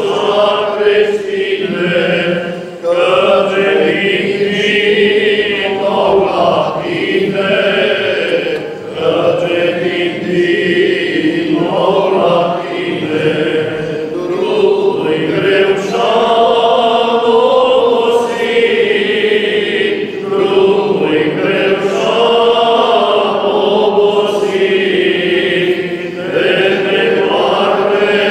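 Group of Orthodox priests, all male voices, singing a liturgical chant together unaccompanied, in long held phrases with short breaks for breath between them.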